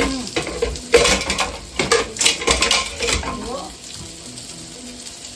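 Food sizzling in a frying pan while a cooking utensil stirs it, scraping and knocking against the pan. The knocks stop after about three and a half seconds and the sizzle goes on alone.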